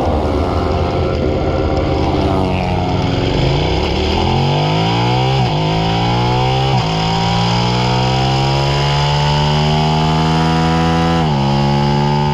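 Suzuki SV650's V-twin engine heard onboard, running steadily at lower revs for the first few seconds. It then accelerates hard, its pitch rising through each gear, with upshifts about five and a half, seven and eleven seconds in.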